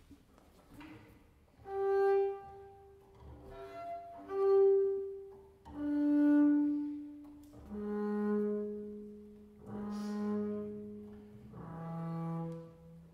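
Double bass played with the bow: a slow series of about seven long notes, each swelling up and fading away, moving lower in pitch toward the end.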